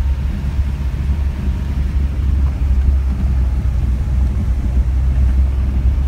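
A car driving on an unpaved gravel road, heard from inside the cabin: a steady low rumble of engine and tyres.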